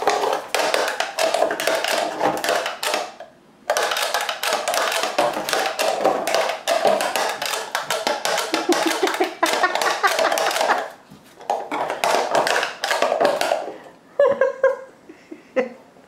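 A Keeshond puppy chewing an empty plastic Parmesan cheese container, the plastic crinkling and crackling in fast, dense runs. There are short pauses about three and eleven seconds in, and it thins to a few scattered crackles near the end.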